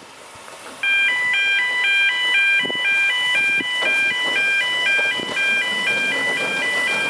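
An electronic chiming tune of short, even notes stepping up and down in a simple repeating melody, starting suddenly about a second in and much louder than the faint background before it.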